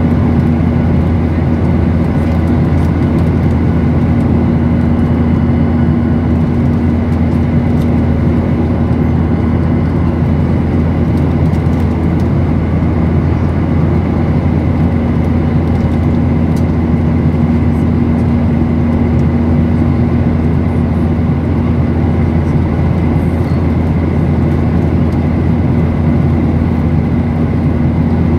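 Steady in-flight cabin drone of a Boeing 737-900ER heard from a window seat beside its CFM56-7B engine: a constant low rumble with a strong steady hum and a faint high whine over it.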